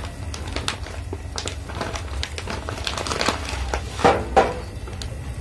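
Plastic bag full of raw red rice crinkling as it is handled and set down, with a run of short crackles that peaks in two louder crinkles about four seconds in.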